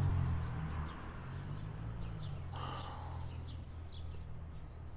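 Small birds chirping in the background, short high chirps scattered every half second or so, with one fuller call about two and a half seconds in, over a low steady hum.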